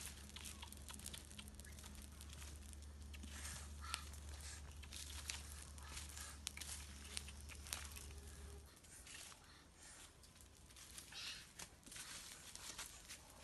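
Small fire of dry sticks and leaf litter burning, with faint, irregular crackles and pops.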